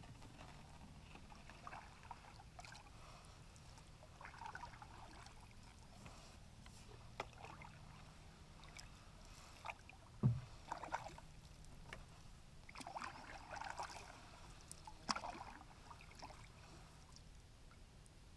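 A canoe being paddled: soft swishes of water from the paddle every few seconds, with drips and light clicks, and one sharp knock about ten seconds in.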